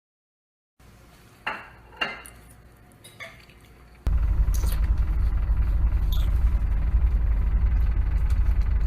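Two light clinks of dishware or cutlery, about a second and a half and two seconds in, with a fainter one a little later; then a loud steady low rumble starts about four seconds in and runs on.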